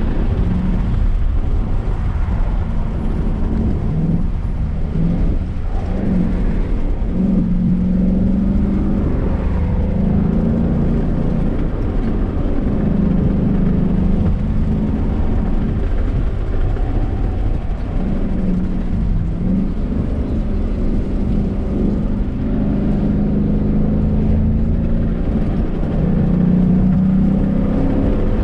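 Car engine being driven hard, its note repeatedly rising and falling as the driver accelerates and eases off, over a continuous rumble of road and wind noise.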